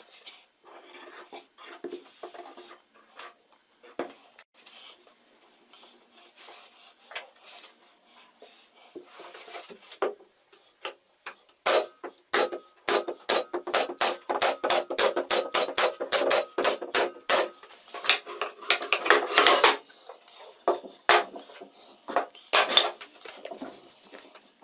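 Plywood pieces knocked and slid on a workbench, then a SENCO nail gun firing a quick run of about twenty sharp shots into stacked plywood, two or three a second. A denser burst of shots and handling comes after, then a few single shots near the end.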